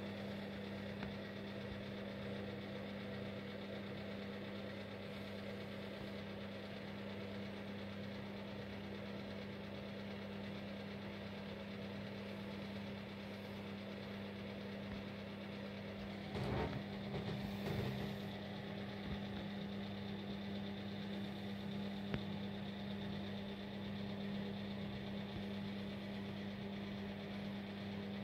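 A steady, even mechanical hum with a strong low tone. A short cluster of knocks and rustling comes a little past halfway.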